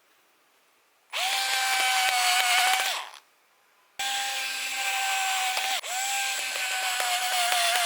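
Small electric power-tool motor running at a steady speed in two runs. The first run lasts about two seconds and is followed by a pause of under a second. The second run keeps going, with one brief dip partway through.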